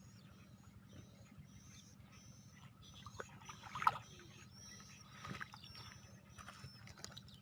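Birds chirping outdoors: short, high chirps repeating about every half second over a low steady hum. A brief louder sound stands out about four seconds in.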